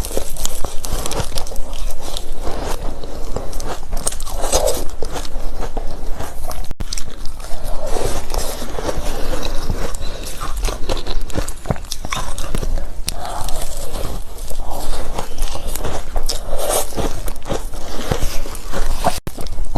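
A person biting and chewing ice close to the microphone: loud, irregular crunches and crackles following one another with no pause.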